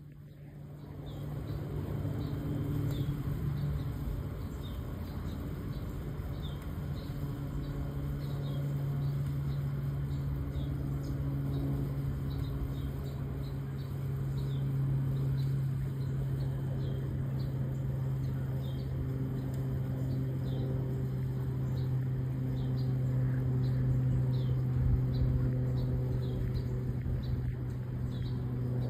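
Cessna 208 Caravan's single PT6A turboprop engine giving a steady low drone as the plane flies past. Short high chirps repeat about once or twice a second over it.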